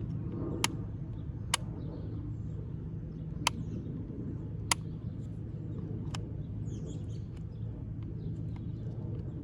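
Five sharp, irregularly spaced clicks, the loudest in the first six seconds with a few fainter ones later, from the rear door's latch and child-lock mechanism being worked by hand after being freed from sticking. A steady low hum and faint bird chirps sit underneath.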